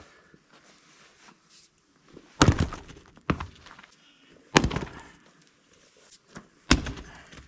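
Heavy wooden thunks of firewood being handled: four separate impacts, one to two seconds apart.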